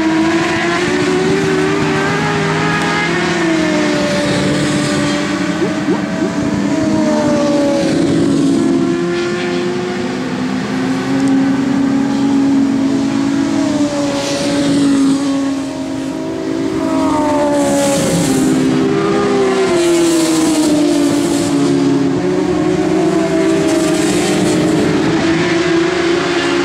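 Several racing motorcycles lapping at once, their engines going up and down in pitch with the revs and overlapping without a break.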